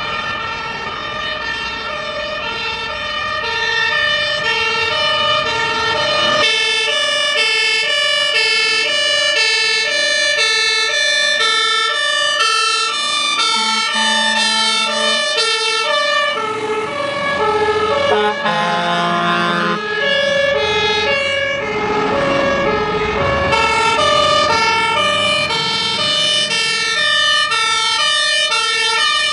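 Fire engine two-tone sirens, several at once, each jumping back and forth between a high and a low note about every half second, slightly out of step with one another.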